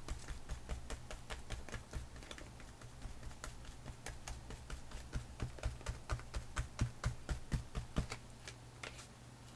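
A wet natural sponge dabbed over and over through a stencil onto a paper page on a table: a string of light, irregular taps, a few a second, which stop near the end.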